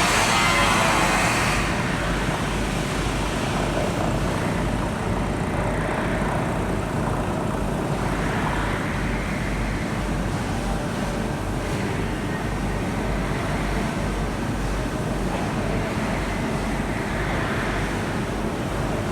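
Milling machine running steadily, its cutter working down through a 20 mm iron plate, with a constant low motor hum under it. The cut is louder and rougher in the first second or two.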